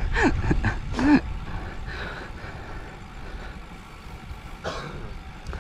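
Low wind and road rumble on a moving road bike's camera microphone, with a few short bits of voices in the first second, easing off after about a second.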